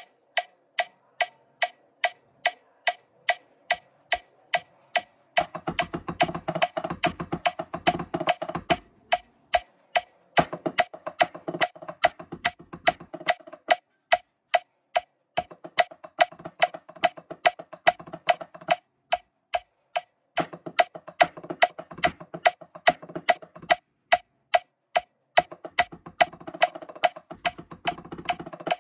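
A metronome clicks steadily at about two clicks a second. Over it, sticks play fast passages on a marching tenor practice pad set: about five to nine seconds in, again from about ten to fourteen seconds, and from about twenty seconds to the end.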